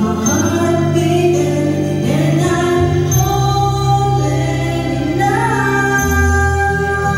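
Music with singing, the voices holding long notes that change pitch every second or two.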